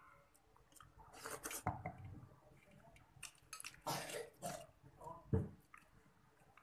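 A person eating crab with his hands: wet mouth sounds of sucking and chewing in short bursts, and one sharp snap, the loudest sound, about five seconds in as the crab shell is pulled apart.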